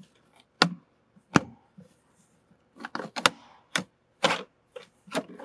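Plastic kick panel trim and door sill guard of a Ford F-150 being pulled off by hand: a series of sharp snaps and clicks as the retaining clips let go and the plastic knocks, some single and a few in quick pairs.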